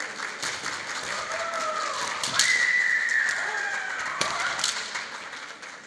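Female kendo players' kiai shouts, high and wavering, with a sharp crack of bamboo shinai and stamping about two and a half seconds in, followed by one long held shout. Another sharp crack comes at about four seconds.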